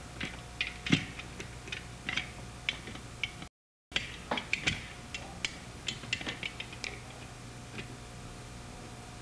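Irregular light clicks and ticks of a metal bar clamp and pen parts being handled as the pen mechanism is pressed into the wooden barrel. A faint steady hum runs underneath.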